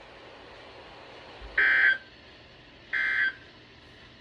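EAS/SAME end-of-message data bursts on a NOAA Weather Radio broadcast, the digital code that closes an alert message. Two short, identical buzzy data bursts sound about 1.3 s apart, over a faint low hum.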